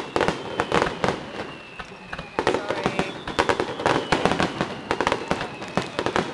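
Fireworks going off: a dense run of rapid pops and crackles from bursting aerial shells. It thins out briefly about two seconds in, then crackles thickly again.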